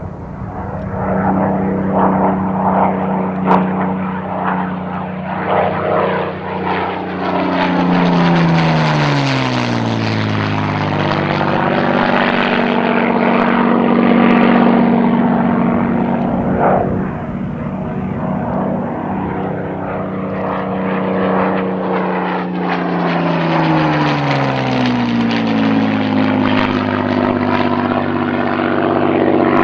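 Supermarine Spitfire Mk.XVI's Packard Merlin V12 engine as the fighter makes two low passes. The engine note rises as it approaches and drops sharply as it goes by, once about a third of the way in and again about three-quarters through.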